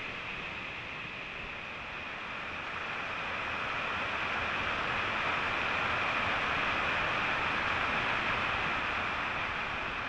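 Steady rushing of water pouring over a tall waterfall, louder from about a few seconds in.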